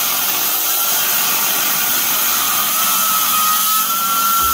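Handheld electric circular saw cutting through a thick teak beam, running steadily with a thin whine over the cutting noise.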